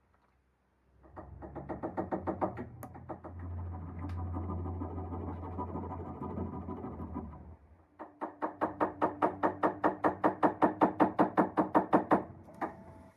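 Rapid, even knocking in two runs of about six knocks a second, with a steady low whir between them, from tool work on a loose door hinge.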